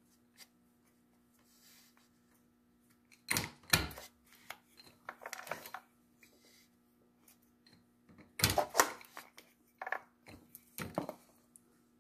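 Short clicks and knocks in several clusters as paper tubes are punched on a milling machine used as a punch press and handled on its metal table. A faint steady hum runs beneath.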